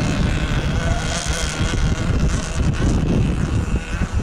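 RC model offshore racing boat running flat out across the water, a faint steady engine whine, under heavy wind buffeting on the microphone, which is the loudest sound.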